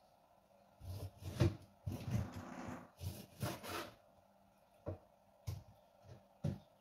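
Kitchen knife cutting raw chicken wings on a plastic cutting board: a few seconds of sawing and scraping with knocks, then three separate sharp knocks near the end.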